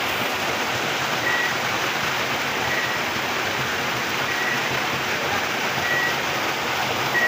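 Steady rushing of river water flowing over rocks. A short high tone repeats about every second and a half.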